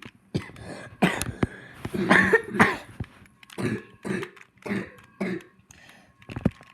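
A child coughing repeatedly, a string of short coughs spread over several seconds, with the throat clearing between them.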